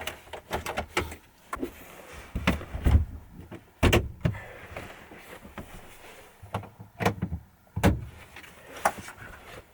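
Irregular clicks and knocks of things being handled, with two heavier thuds about four seconds apart.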